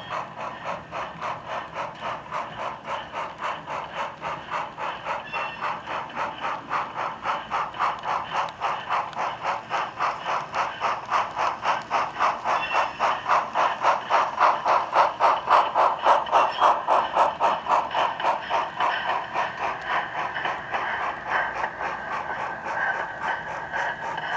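HO-scale model steam locomotive running with steady rhythmic chuffing at about three to four beats a second. It grows louder toward the middle and eases off again near the end.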